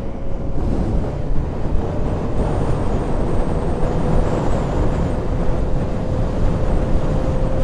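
Motorcycle cruising at a steady speed, heard through a helmet-mounted camera: wind rush over the microphone with the engine running underneath and a faint steady whine.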